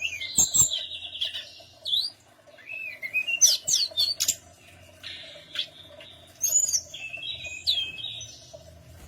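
Tledekan gunung songbird singing: bursts of quick high chirps, sweeping whistles and buzzy trills, broken by short pauses. A steady low hum runs underneath.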